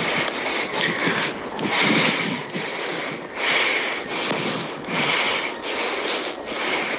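Wind buffeting a phone's microphone, a rough rushing noise that swells and drops every second or so.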